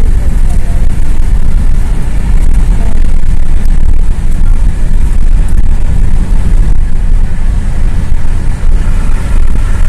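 Car driving at highway speed, heard from inside the cabin: a loud, steady low rumble of road and wind noise.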